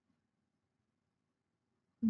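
Near silence: a gap in the track with no audible sound.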